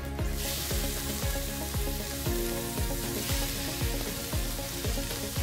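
Pork and pork liver cubes frying in browned butter in a stainless steel wok, a steady sizzle that grows loud just after the start. Background music with a steady beat plays underneath.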